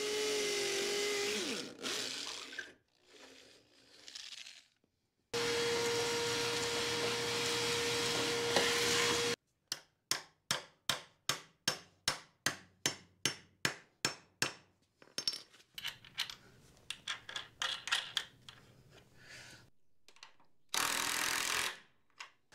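Hammer drill with a masonry bit boring through a pressure-treated bottom plate into a concrete floor for anchor bolts, in two runs with a steady whine. Then about fifteen sharp hits, about three a second, as an anchor bolt is driven, and near the end a short burst from an impact wrench running the nut down.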